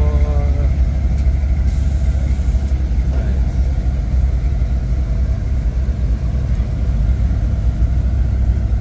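Truck engine running with a steady, deep low sound.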